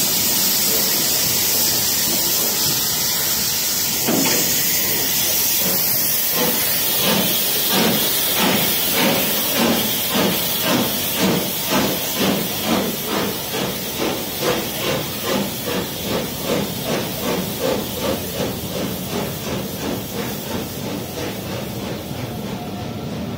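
Steam locomotive LMS Jubilee 45690 'Leander', a three-cylinder 4-6-0, pulling away: a steady hiss of steam at first, then its exhaust beats start about four seconds in at about two a second. The beats quicken a little as it gathers speed and grow fainter as it draws away.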